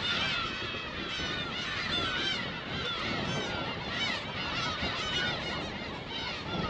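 A dense colony chorus of black-tailed gulls, many birds calling over one another in short, mewing, cat-like cries with no pause.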